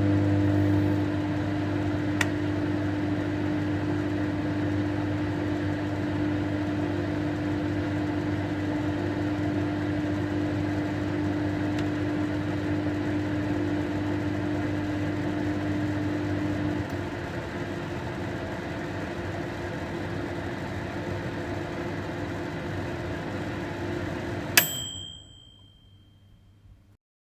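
Microwave oven running with a steady electric hum, a slight change in the hum about two-thirds of the way through. Near the end the cycle finishes: a click, the hum cuts off, and a single bell ding rings out and fades.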